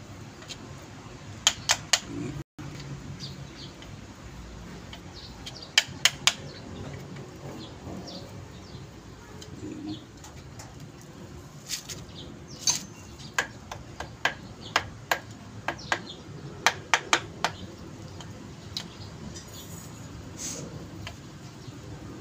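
Sharp taps and clicks from hand work on steering box parts. Three quick ones come about a second and a half in and three more around six seconds. A run of about a dozen evenly spaced taps follows between roughly twelve and seventeen seconds.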